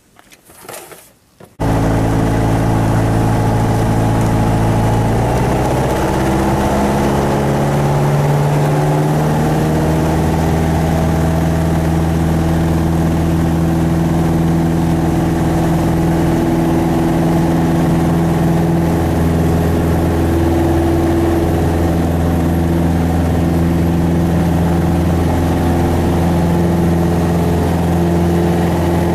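Single-engine light airplane's piston engine and propeller running at high power, heard from inside the cockpit during the takeoff roll. It cuts in suddenly about a second and a half in, its tones shifting for several seconds and then holding steady.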